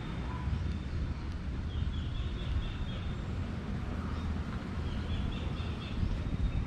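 A bird chirping in quick runs of short repeated notes, twice: about two seconds in and again about five seconds in. Underneath is a steady low rumble of wind on the microphone.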